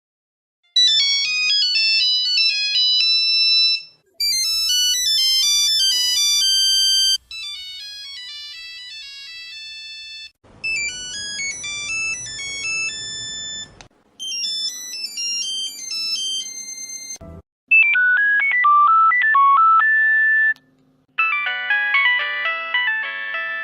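A succession of Nokia mobile phone ringtones, about seven short synthesized melodies of roughly three seconds each, separated by brief gaps. The earlier tunes are high and beepy, and the later ones are lower and fuller.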